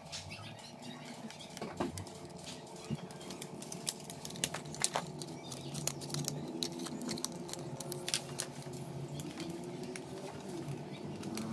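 Irregular small clicks and taps of hands working on an opened laptop: plastic and small metal parts being handled, over a steady low hum.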